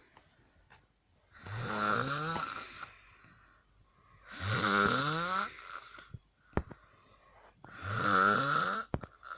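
A girl snoring: three rasping snores on the in-breath, each a second or so long, about three seconds apart.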